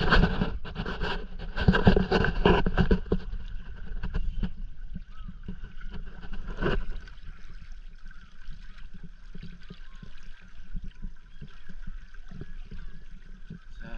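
Water rushing and gurgling along the hull of a Hobie sailing kayak under way, louder and choppier for the first few seconds, then steadier. One sharp knock or slap comes about halfway through.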